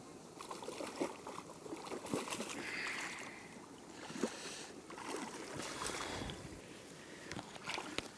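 Irregular splashing and sloshing of water from a hooked fish thrashing at the surface close to the bank as it is played in on a fly rod and brought to the net, in uneven bursts with a few sharper splashes.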